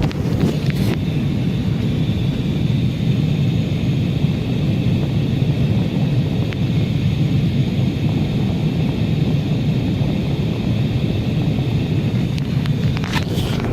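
HVAC air handler's blower running: a loud, steady rush of air with a low drone and a faint high whine over it.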